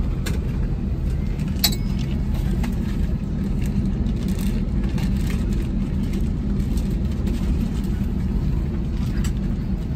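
Steady low hum of an Airbus A320 cabin: the aircraft's ventilation and machinery noise. A small click comes about two seconds in.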